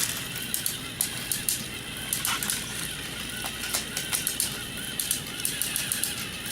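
Motorized toy trains clicking and rattling on plastic track, with a faint motor hum, as two engines push against each other head to head.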